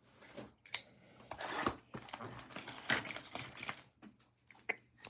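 Scattered crinkling, rustling and small taps of card-box packaging and packs being handled and opened by hand.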